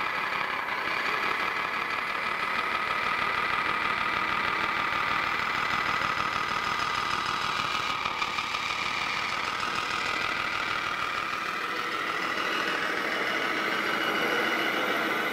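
Radio-controlled scale semi truck running slowly, with a steady diesel-like engine idle sound.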